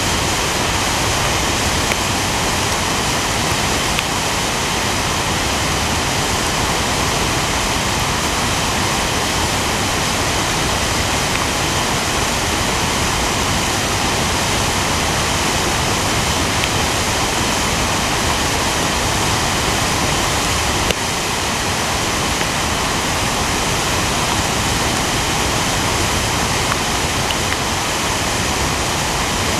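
A flood-swollen river rushing through rapids: a loud, steady wash of churning muddy whitewater.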